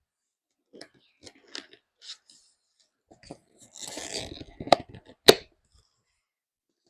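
Packaging being opened on a trading card game box: scattered rustles and taps, a stretch of crinkling and tearing about four seconds in, then two sharp snaps about half a second apart.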